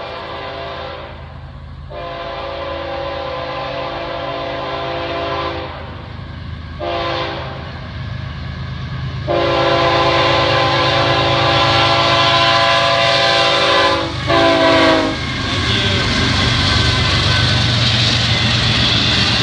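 Air horn of a Florida East Coast freight train led by GE ES44C4 locomotives, blowing a series of long and short blasts for the grade crossing and growing louder as it nears, with the last blast ending about fifteen seconds in. The locomotives and the first intermodal cars then rumble past over the crossing, and a steady crossing warning bell rings underneath.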